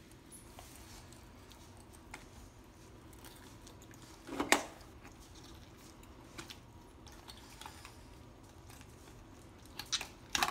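Faint sounds of a knife carving the leg off a whole roast chicken on a plastic cutting board. There is one sharp knock about four and a half seconds in and a few quick clicks near the end.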